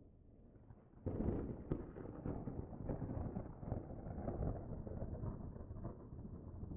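Pyroclastic flow on Sinabung's flank: a low rumble that starts suddenly about a second in and goes on, with a continuous crackle of tumbling rock and ash.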